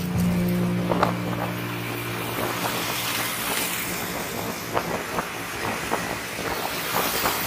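Street traffic noise: a steady rush of vehicles with scattered small clicks. A low held note of background music runs under it and stops about two seconds in.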